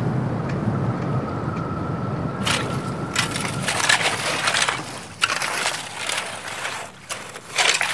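A low rumble of wind, then from about two and a half seconds in, a shellfish rake's metal tines scraping and crunching through wet gravel and shells in a series of strokes.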